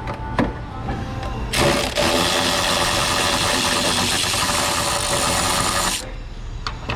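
Compressed-air tool running in one burst of about four and a half seconds, a loud steady hiss with a faint motor hum in it that cuts off sharply, while a spark plug is being taken out of a GMC Savana's LS V8.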